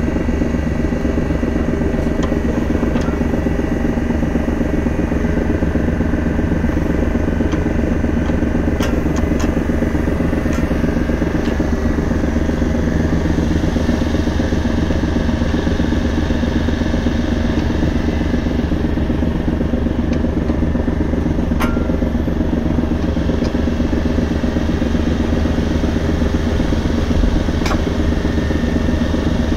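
Komatsu PC55MR-3 mini excavator's four-cylinder diesel engine running steadily while the hydraulics swing the upper structure round, with a few light clanks.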